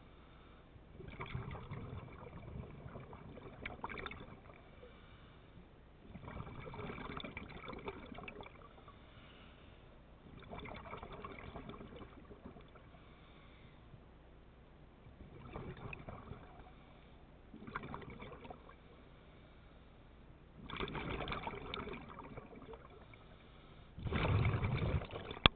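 Scuba diver's exhaled bubbles from the regulator, a bubbling rush in bursts of about two seconds every four to five seconds, with quieter breaths in between.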